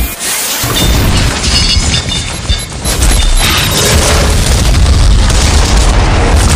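Very loud, distorted explosion and boom sound effects piled on one another over a heavy, steady low rumble, with a short dip just after the start.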